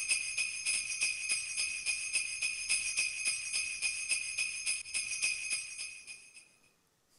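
Sleigh bells shaken in a quick, steady rhythm, fading out about six seconds in.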